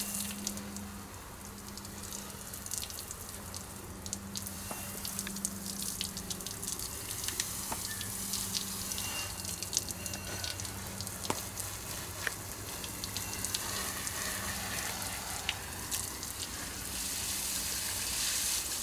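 Water spraying or running from a hose, an even hiss with many small crackles and ticks, over a steady low hum that breaks off now and then.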